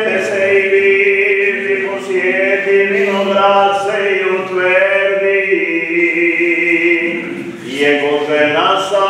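Male chanters singing Serbian Orthodox liturgical chant: a low note held under a moving melody, with a short break and a new rising phrase starting near the end.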